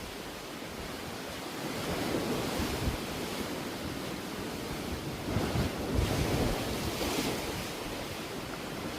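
Sea waves washing in, swelling twice, with wind rumbling on the microphone during the second swell.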